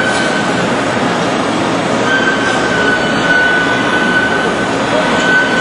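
Amada TECHSTER A3 surface grinder running: a loud, steady mechanical noise with a thin high whine that drops out briefly near the start and comes back about two seconds in.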